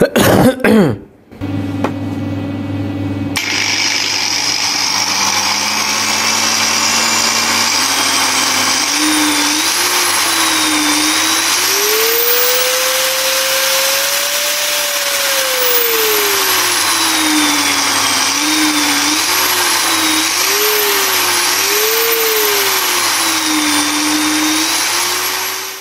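Hand angle grinder running through an SCR dimmer speed controller. Its motor whine rises and falls in pitch as the speed knob is turned, climbing to its highest around the middle and then wavering up and down. A short sweeping intro sound plays in the first second.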